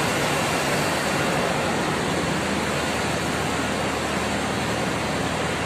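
Steady machinery noise of a ship's engine room, an even, unchanging din of running engines, pumps and ventilation blended together.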